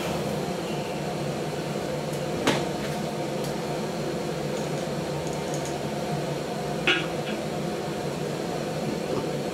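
A steady low hum, with two short clicks a few seconds apart as a glass beard-oil dropper bottle is handled.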